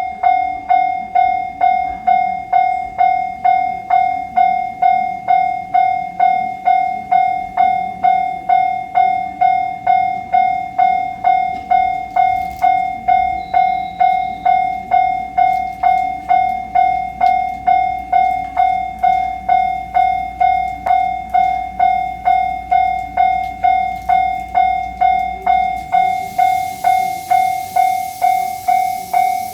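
Japanese railway level-crossing alarm ringing its electronic "kan-kan" bell, about two rings a second. A low rumble comes in about halfway through, and a hiss starts near the end.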